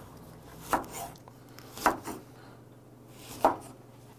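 Kitchen knife cutting a lemon into wedges on a wooden cutting board, with the blade knocking the board three times at intervals of a second or more.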